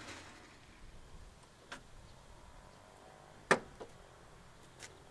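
The raised hood of a Mitsubishi Lancer being handled: a few light clicks and one sharper, louder clack about three and a half seconds in.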